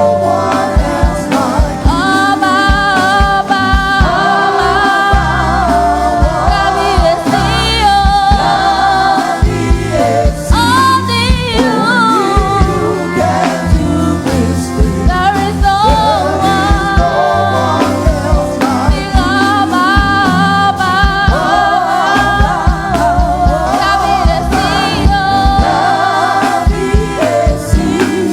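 A praise team singing a gospel song with a band: several voices together over bass and drums at a steady beat.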